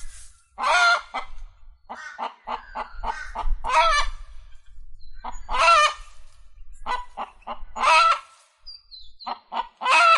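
Domestic fowl calling: loud, harsh, honking calls about every two seconds, with runs of short, quick calls in between.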